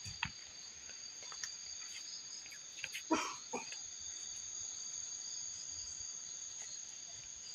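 Crickets chirring steadily in a high, unbroken trill, with two short soft noises about three seconds in.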